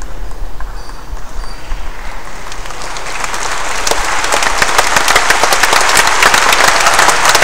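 The last of the demo's electronic music dies away, then a hall audience's applause starts about two to three seconds in and swells, growing louder toward the end.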